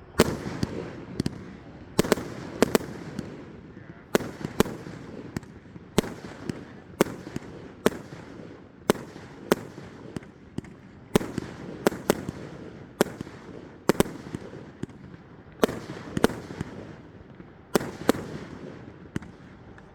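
A 58-shot consumer fireworks cake firing: a steady string of sharp bangs, about one or two a second, each ringing briefly after it.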